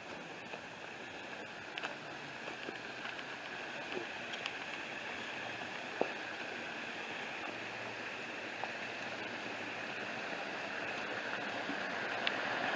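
Steady rush of water from small waterfalls, growing louder toward the end, with a few faint clicks.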